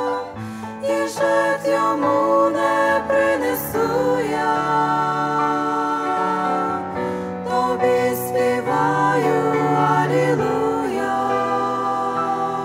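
A small group of women singing a Ukrainian Christian song together into microphones, with long held notes and vibrato. Steady low notes are sustained beneath the voices.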